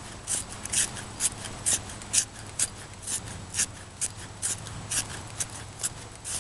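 A small deadfall stick twisted in a handheld carpenter's pencil sharpener, the blade shaving off thin wood curls for tinder in short scraping strokes, about two a second.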